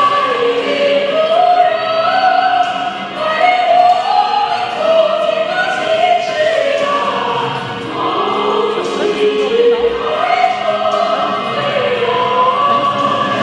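A choir singing a slow melody in long, held phrases.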